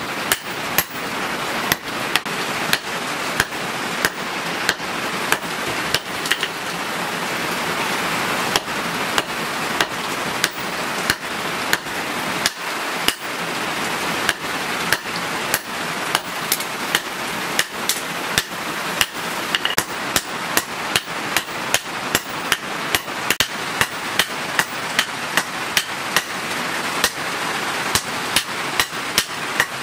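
Hammer and sledge blows striking a red-hot leaf-spring steel axe blank on a steel anvil: a steady run of sharp metal-on-metal strikes, about two a second and coming faster in the last few seconds, over a constant hiss.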